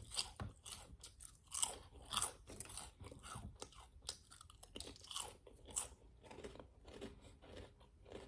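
A person chewing crunchy food close to the microphone, with irregular crisp crunches several times a second.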